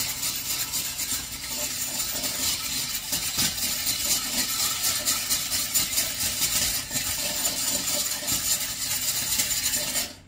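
Hand-cranked rotary egg beater beating an egg in a mixing bowl: a steady, fast rattle of gears and spinning beaters that stops suddenly near the end.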